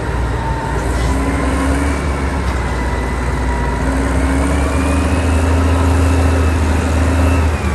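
Vehicle engine running steadily, with a strong deep hum under a faint wavering whine.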